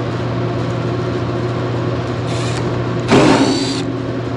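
Cordless driver spinning in two short runs: a brief faint whir about two seconds in, then a louder whine for under a second, its pitch rising and falling. A steady low hum runs underneath.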